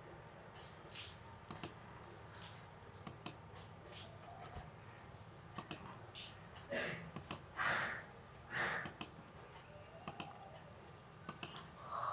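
Computer mouse clicking: scattered single clicks over a faint hiss as sketch corners are picked one by one. About seven to nine seconds in, three short, louder rushes of noise stand out.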